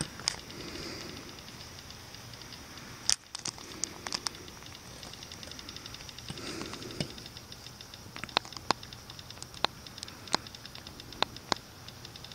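Scattered sharp clicks and taps, irregularly spaced, over a steady high hiss: handling noise from a handheld camera held up to a night sky.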